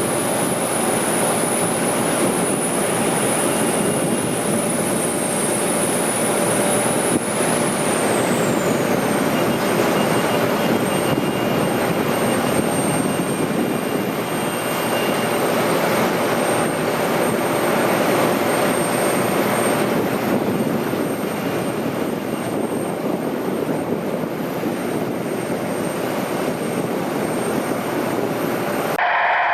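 Jet aircraft engines running loud and steady, with a high whine that falls in pitch about eight seconds in. The noise cuts off abruptly near the end.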